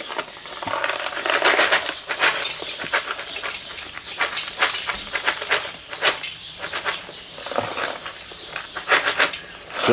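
Mesquite wood pellets poured from a paper pouch into a metal smoker box of wood chips, rattling against the metal and the chips in uneven spurts, with the pouch rustling.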